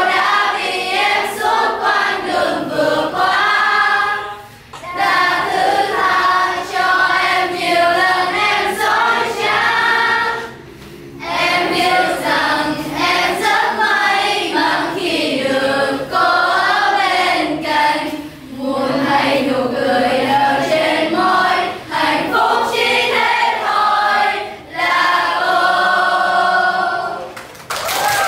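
A group of young voices, mostly girls, singing a song together in unison, in phrases of several seconds with short breaks between them and little or no accompaniment.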